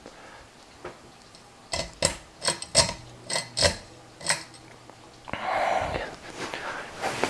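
A quick string of about eight sharp clicks and rattles over two or three seconds as the ceiling fan's speed control is switched to medium, followed a second later by a short rush of noise.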